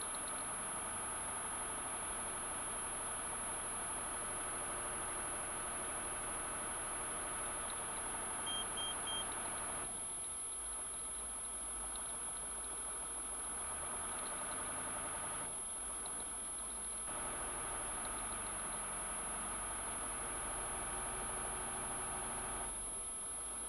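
A vehicle engine idling steadily, its note shifting a few times, with three short high beeps about nine seconds in and a thin steady high-pitched whine underneath.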